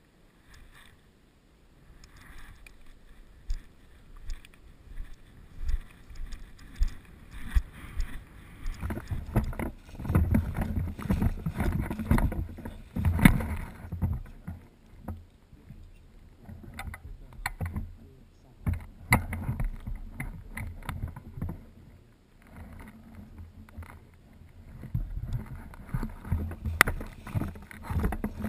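Helmet-camera movement noise: irregular rustling and low thuds as the wearer moves, with wind on the microphone and a few sharp clicks.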